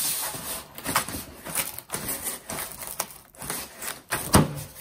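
Stapled cardboard shipping box being pried open by hand: irregular scraping, crackling and tapping of the cardboard, with a sharp snap near the end as a flap is yanked against its staples.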